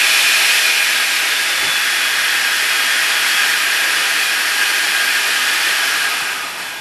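A dynamically balanced 70 mm electric ducted fan, driven by a 2839 KV1950 outrunner motor on 6S LiPo, running at high power: a loud, jet-like rushing hiss with steady high whine tones from the fan blades. Near the end it starts to wind down and grows quieter.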